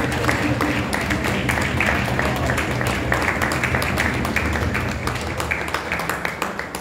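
A group of people clapping their hands in applause, with music playing underneath. The clapping thins out near the end.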